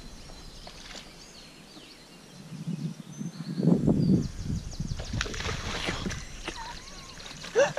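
Miniature schnauzer wading into a stream and then paddling, with a low rumbling noise about three to four seconds in and splashing from about five seconds in.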